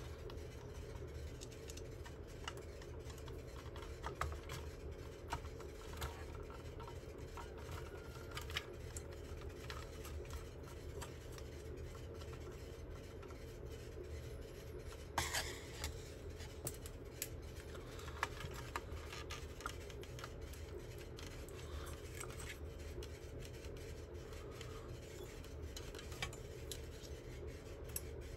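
Faint, scattered small clicks and scrapes of hand tools and metal parts being handled while unscrewing and taking apart a bench power supply, with one sharper click about halfway through. A steady low hum sits underneath.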